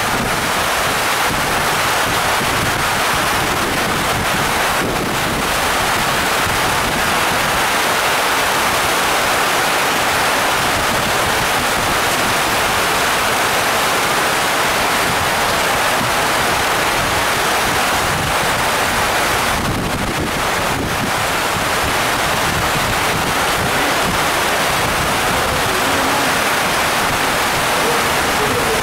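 Heavy tropical rain pouring onto the river and the dock roof overhead, a steady loud hiss.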